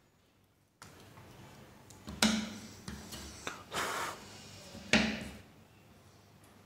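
Paper being handled and folded by hand: rustling and creasing, with two sharper crackles about two and five seconds in.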